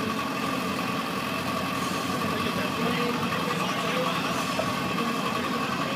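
Steady mechanical hum with a constant high whine, under faint indistinct voices.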